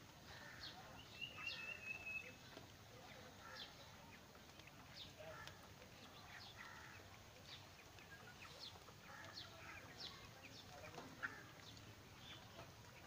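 Faint, scattered short high chirps and peeps of a flock of broiler chickens, with one brief trill about a second in.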